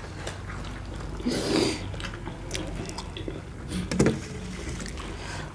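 People biting and chewing chicken momo with no hands: scattered wet mouth clicks, with two louder noisy eating sounds, one about one and a half seconds in and one about four seconds in, over a low steady hum.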